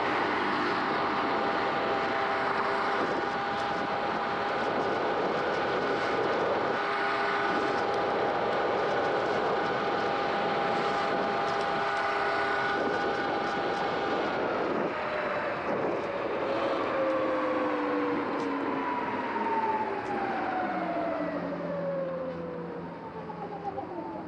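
Sur-Ron X electric dirt bike riding at a steady speed: a steady, multi-toned electric motor whine over wind and tyre noise. From about halfway the whine falls steadily in pitch as the bike slows to a stop.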